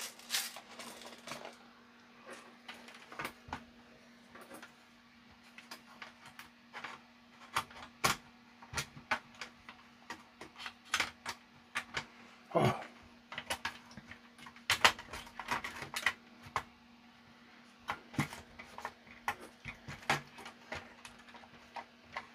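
Irregular plastic clicks and knocks as the black plastic disc tray and loading mechanism of a Hinari DP1 CD player is handled and pushed into its seat, with one louder knock about halfway through. A faint steady low hum runs underneath.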